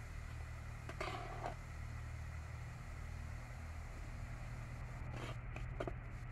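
A steel plate scraping cooked rice out of an aluminium pot and tipping it into a wok: a few short scrapes and light knocks about a second in and again near the end, over a low steady rumble.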